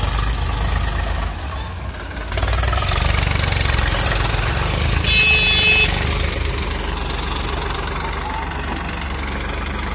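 Eicher 480 tractor's diesel engine running under load as it pulls a loaded trolley through deep mud, a steady low throb. About halfway through, a brief shrill squeal cuts in over it for just under a second.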